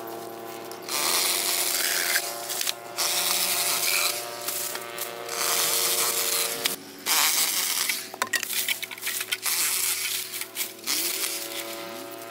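Battery-powered saw cutting through bamboo, its motor humming steadily under a loud rasping that starts about a second in and comes in stretches with short breaks. About eight seconds in it eases into lighter, broken cuts.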